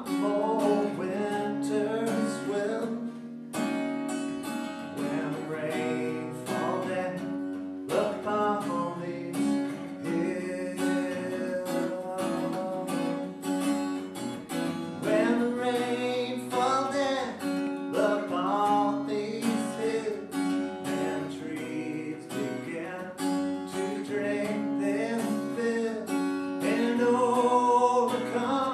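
Acoustic guitar strummed in a steady rhythm, with a man's voice singing over it at times.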